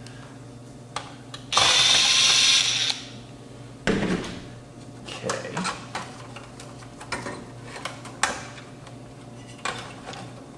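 A screwdriver runs in one brief buzzing whir about a second and a half long, backing a screw out of the receiver's chassis. Scattered light clicks and knocks of screws and metal parts being handled follow.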